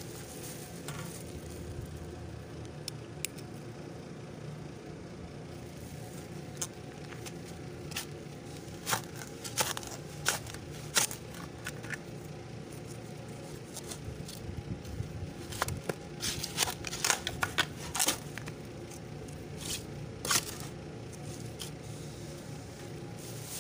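A metal shovel digging into dry soil: sharp scrapes and chops of the blade, coming in clusters from about a third of the way in, over a steady low hum.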